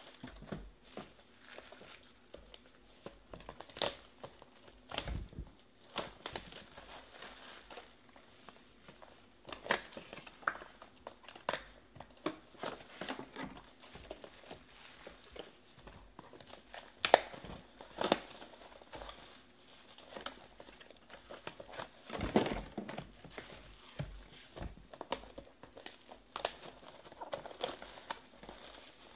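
Plastic shrink wrap crinkling and tearing as it is pulled off a sealed trading-card box, with scattered sharp clicks and knocks of cardboard boxes being handled.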